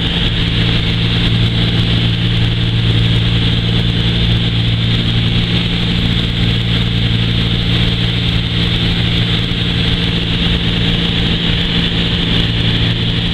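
Bellanca Super Viking's single piston engine and propeller running steadily, a constant drone with a rush of air, heard inside the cabin.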